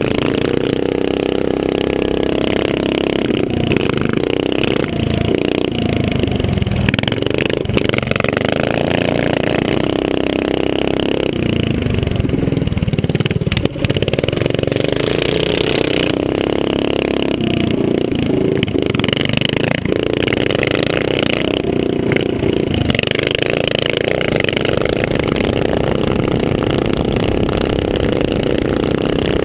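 Small off-road motorbike engine racing round a dirt track, heard close up from the rider's helmet: the engine note rises and falls again and again as the throttle opens and closes.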